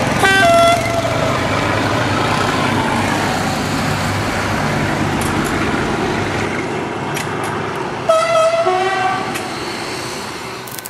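Train horn sounded twice on an HO model railway layout, a short two-tone blast just after the start and a longer one about eight seconds in, over a steady background of running-train noise.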